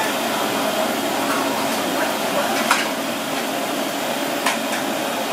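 Steady roar of lit gas wok burners in a street-food kitchen. A steel ladle clinks sharply twice, about two and a half and four and a half seconds in, while sauce is ladled over a plate of fried fish.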